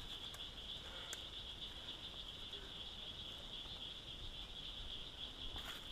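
Steady, high-pitched trilling of an insect chorus that runs without a break, with a faint click about a second in.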